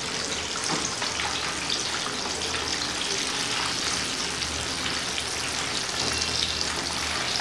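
Breadcrumb-coated chicken leg pieces deep-frying in hot oil: a steady, even sizzle of bubbling oil.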